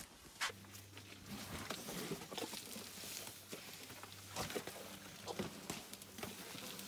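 Elephants wallowing in wet mud at close range: irregular squelches, splats and wet slaps as trunks, feet and bodies work the mud. A low steady hum runs underneath from about half a second in.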